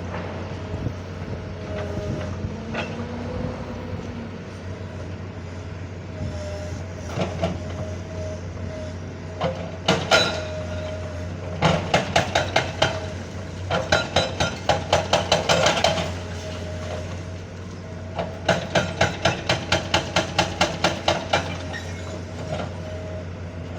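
Backhoe working at a building demolition: its engine running steadily with a held whine. In the second half come three runs of rapid hard knocks, about four a second, with a single loud knock just before them.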